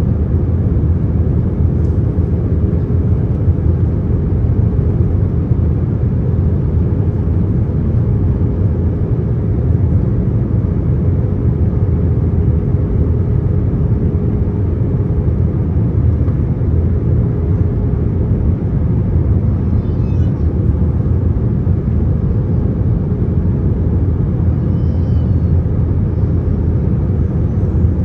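Airbus A321 cabin noise in flight: a steady low rumble of the engines and rushing air. A faint steady hum runs under it and fades out about two-thirds of the way through.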